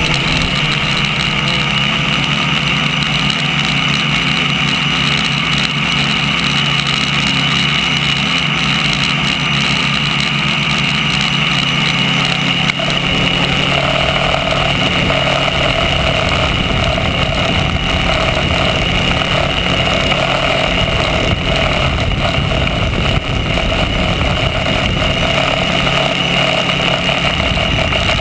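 Electric motors and propellers of a tricopter in flight, a steady buzzing whine with a hiss of air, heard from the camera on the craft itself. The tone shifts about halfway through.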